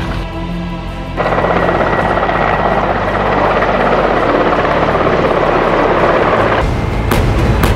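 Helicopter in flight: a steady rush of turbine and rotor noise comes in about a second in and holds until near the end. Music takes over near the end, with two sharp hits.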